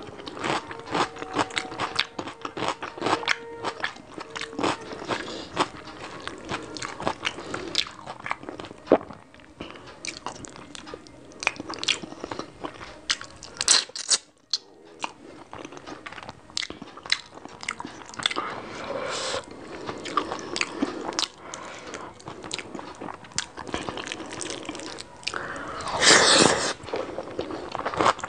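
Close-miked eating by hand: chewing rice and curry with dense, irregular wet mouth clicks and crunches, and fingers squishing food on the plate. One louder, longer sound comes about two seconds before the end.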